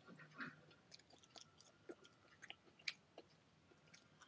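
Faint close-up chewing, with scattered small clicks and crunches.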